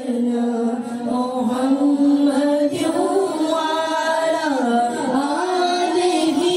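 A solo voice singing a slow, ornamented devotional chant in long held notes that bend and waver in pitch, with no beat underneath.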